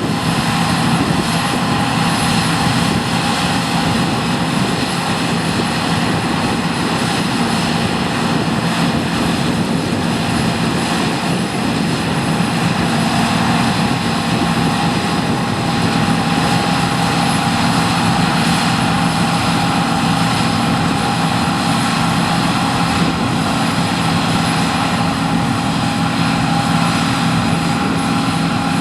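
John Deere T560 combine harvester running steadily while harvesting winter barley: a continuous loud machine drone with several steady whines over it.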